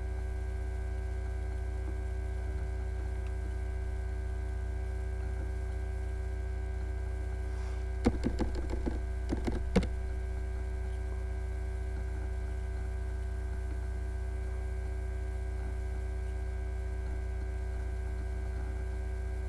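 Steady electrical hum on a poor microphone line, several fixed tones held at an even level. About eight seconds in comes a short burst of computer keyboard typing, a quick run of clicks lasting about two seconds.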